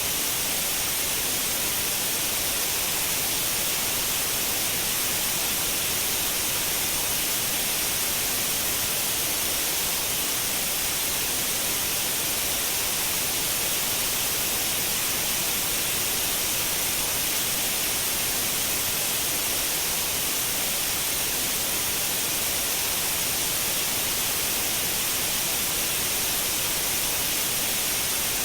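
Steady, continuous white noise: an even, unchanging hiss, brightest in the high treble.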